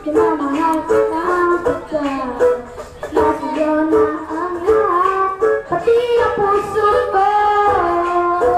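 A boy singing a song into a corded handheld microphone, over instrumental music with a plucked string part.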